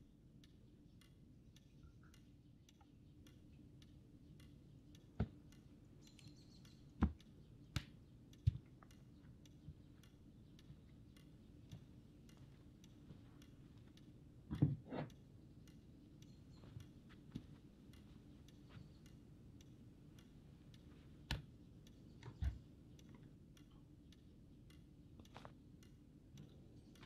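A steady run of faint, evenly spaced ticks over a low hum, with a few louder knocks and thuds in between, the loudest a close pair about halfway through.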